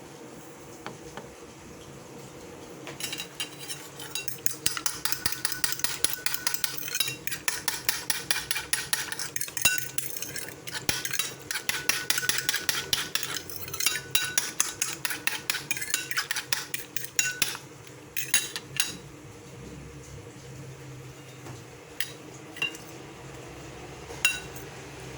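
A fork beating eggs in a bowl: rapid, rhythmic clinking of metal against the bowl, about four or five strokes a second, for roughly fifteen seconds, then stopping, followed by a few single clinks near the end.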